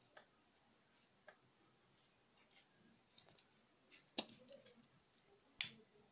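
Scissors snipping crochet yarn: scattered light clicks and handling noises, with two sharp snaps about four and five and a half seconds in.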